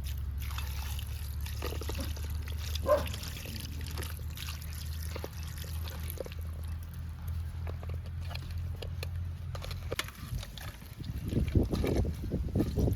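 Water trickling and sloshing as boiled goat intestines are washed by hand, with scattered clicks and one brief sharp sound about three seconds in. A steady low hum stops about ten seconds in, and the splashing grows louder near the end.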